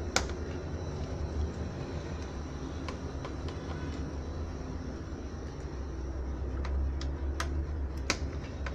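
A small screwdriver working the screws in a laptop's bottom case, giving a few light clicks in the last couple of seconds, over a steady low hum.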